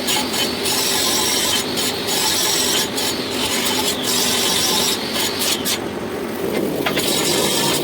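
Metal lathe running, with a steady machine hum under a rough, high scraping as a tool works a steel pipe nipple. The scraping breaks off briefly a few times, the longest gap a little past the middle.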